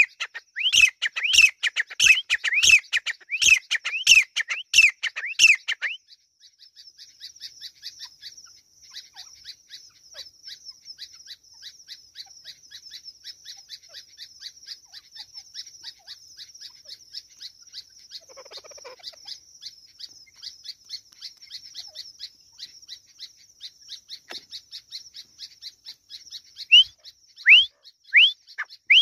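Grey francolin calling loudly: a fast run of repeated rising notes, about two a second, for the first six seconds, stopping abruptly and starting again near the end. In between, only a faint, rapid, high chirping series is heard.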